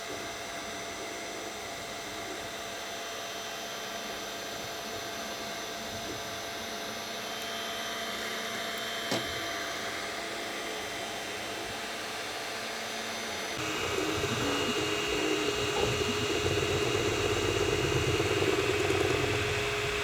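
3D printer running: a steady fan hum with a single click about nine seconds in, turning louder about two-thirds through as a steady motor whine joins it.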